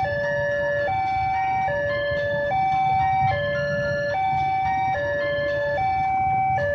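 Railway level-crossing warning alarm sounding: an electronic two-note chime switching steadily between a higher and a lower note a little under once a second. Underneath is the low rumble of motorcycles and traffic waiting at the closed barrier.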